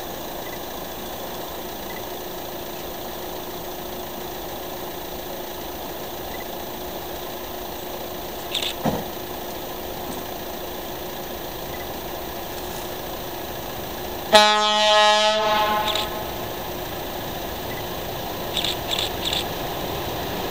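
A single horn blast about one second long, with several tones sounding together, from the lead of a pair of CKD diesel locomotives as it approaches a level crossing. Before and after the blast there is a steady low rumble of the approaching train.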